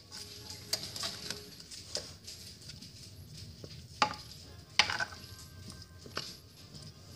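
A utensil stirring carrots and onion in a hot pan: irregular clinks and scrapes against the pan, the sharpest about four and five seconds in, over a faint sizzle.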